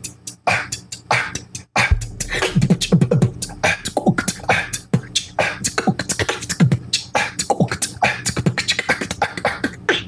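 Beatboxer demonstrating the cough snare: a fast run of short, crisp, cough-like snare hits pushed from the throat with strong diaphragm exhales, several a second, in a beat pattern. A low held bass tone joins about two seconds in.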